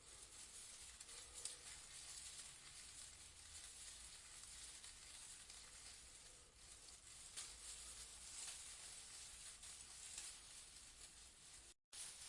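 Leaves rustling in a breeze: a faint, soft crackling hiss with small swells, cutting out for a split second near the end.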